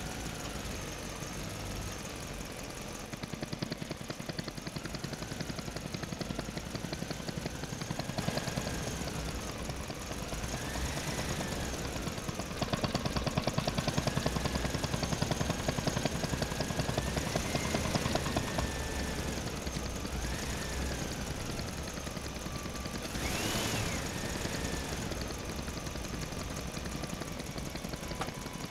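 An engine running with a rapid, even putter, its pitch rising and falling as it revs up and down several times, with one sharp rev up and back down about 23 seconds in.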